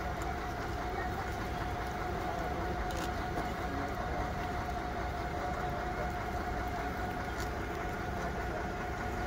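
Stationary MÁV Bzmot (class 117) diesel railcar idling with a steady hum and a faint clicks or two.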